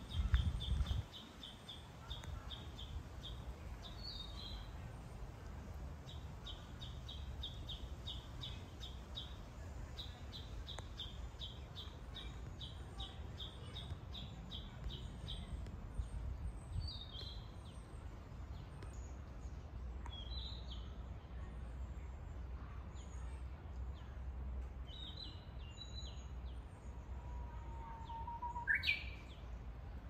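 Japanese bush warbler (uguisu) calling: runs of quick repeated high notes at about three a second, then scattered single notes. Near the end comes a low held whistle that leaps up into a higher phrase. A low rumble lies underneath, with its loudest burst in the first second.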